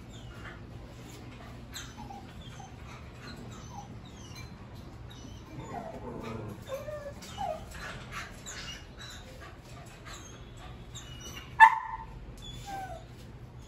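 Dogs whining and whimpering in short, pitch-sliding cries, with one short loud yelp near the end.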